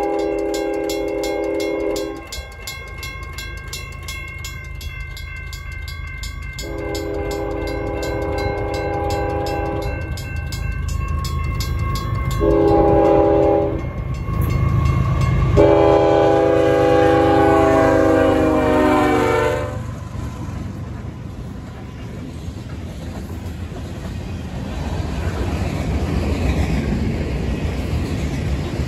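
Union Pacific freight locomotive's air horn sounding the grade-crossing signal (two long blasts, one short, one long), the last blast dropping in pitch as the engine passes. The crossing bells ring steadily behind it. In the second half the freight cars rumble and clack past.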